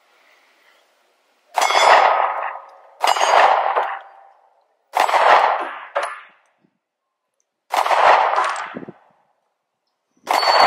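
Five single 9mm shots from a Sig Sauer P320 pistol, spaced one to three seconds apart, each followed by the ring of a steel target being hit. The last shot comes near the end.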